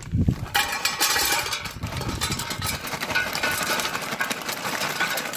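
Dry apple wood chips poured from a bag into the metal chip box of an electric smoker: a dense, steady clatter of many small wooden pieces hitting metal and each other, starting about half a second in.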